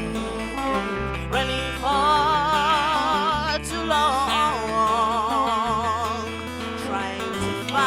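Live song: a woman singing in an African language, holding long notes with wide vibrato, over acoustic guitar and low bass notes that change every second or two.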